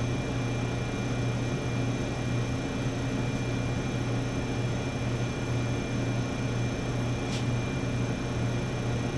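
Steady low hum of laboratory equipment running, with a few faint steady high-pitched whines over it and one brief soft tick about seven seconds in.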